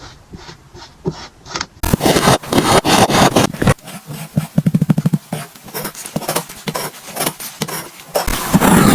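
Kinetic sand being scraped and worked by hand or tool. There are soft regular strokes, about three a second, at first. After about two seconds it turns to a louder, denser run of scraping, with a quick rapid patter near the middle and scattered clicks.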